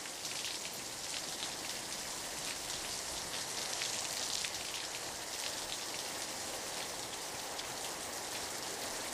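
Heavy rain falling steadily: an even hiss flecked with faint ticks of individual drops.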